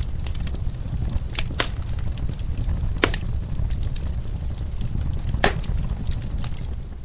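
Wood fire crackling, with scattered small clicks and a few sharper pops over a steady low rumble of the flames.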